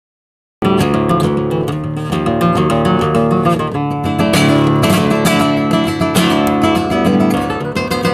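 Background music of strummed acoustic guitar, starting suddenly out of silence about half a second in and playing on steadily.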